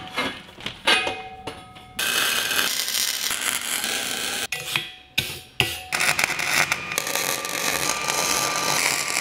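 Wire-feed welder arc crackling steadily while welding a metal-tube seat frame, starting about two seconds in. It breaks off briefly and starts again about six seconds in. Before the first stretch and in the gap there are a few short metal clinks and knocks.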